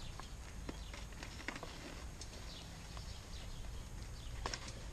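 Faint scattered clicks and knocks from motorcyclists handling helmets and riding gear beside their parked bikes, over a low steady rumble.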